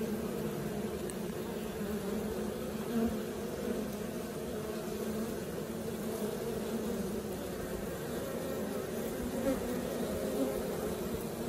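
Steady, low buzzing hum of many European honeybees (Apis mellifera) at the hive entrance, their wingbeats blending into one drone as foragers fly in and land.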